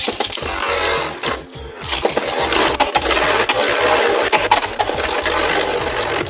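Two Beyblade tops spinning on the plastic floor of a stadium, a dense rasping whirr broken by rapid clicks and clatters as they strike each other and the stadium wall.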